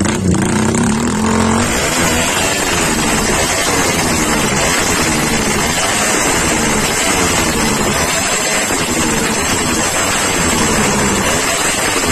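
Honda TMX 155 motorcycle with a four-valve head and open exhaust, its single-cylinder engine revved again and again, the pitch rising and falling every second or two.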